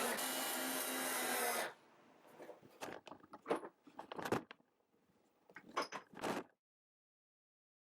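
Background music ending a little under two seconds in. It is followed by a few irregular knocks and rattles of wooden panels and hardware being handled in a workshop, then silence.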